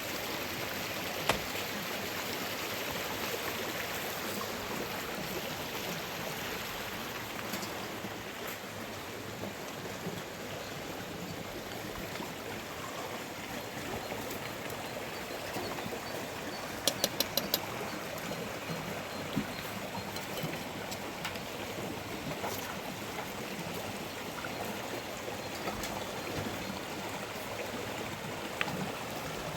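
Steady rushing of water. A few sharp clicks stand out above it, including a quick run of four about two-thirds of the way through.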